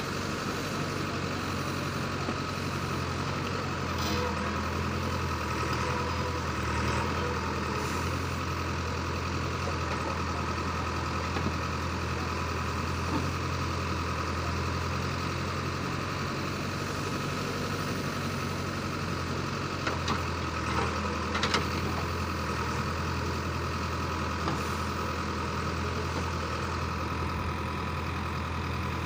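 JCB 3DX backhoe loader's diesel engine running steadily while the backhoe arm digs and lifts soil. A few short knocks stand out over the engine, most of them about twenty seconds in.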